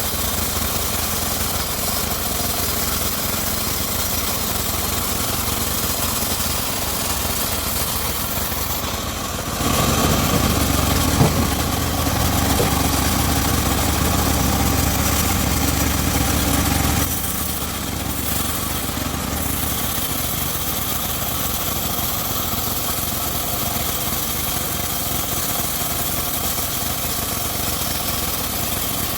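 Homemade engine-driven circular sawmill running steadily, growing louder and deeper for about seven seconds from roughly ten seconds in.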